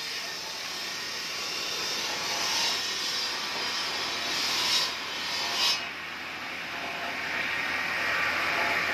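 Bench-mounted stone saw running and cutting marble, a steady hissing grind, with two short louder bursts about five seconds in.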